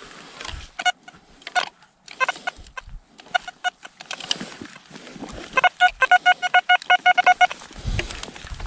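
Metal detector beeping over a freshly dug hole, signalling a target. A few single mid-pitched beeps come first, then a quick run of about six beeps a second for two seconds. Near the end there is low rustling and handling noise.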